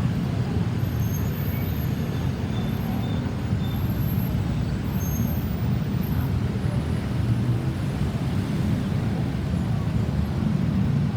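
Steady low rumble of road traffic, with no siren sounding.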